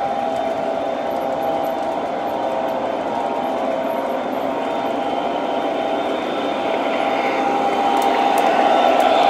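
O gauge model diesel locomotives running along the track, their electric motors and gears whining steadily over the rumble of wheels on rail, getting louder as the train comes closer.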